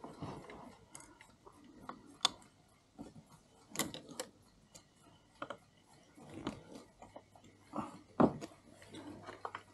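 Scattered sharp clicks and light metal knocks, roughly a second apart, from a wooden-handled key being worked on the arbor of a 1950s–60s Mauthe hour-and-quarter chiming clock movement.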